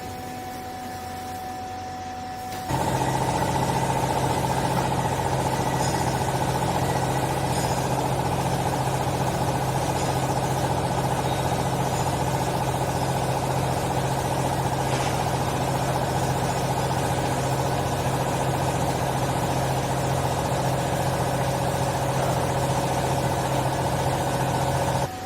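Hydraulic clothing baler's pump and motor running steadily: a low hum with a higher whine comes on abruptly about three seconds in, holds level, and cuts back to a quieter hum near the end.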